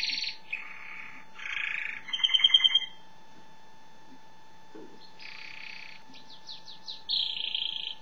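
Domestic canary singing: rapid trills and buzzy rolled phrases, the loudest a pulsed trill about two and a half seconds in. After a pause of about two seconds it starts again with quick sweeping notes and another trill near the end.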